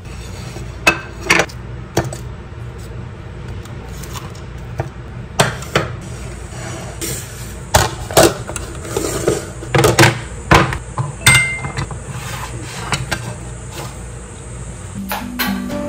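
Plates and dishes being handled and set down on a table: scattered knocks and clinks of plate on plate and plate on tabletop, over a steady low room hum.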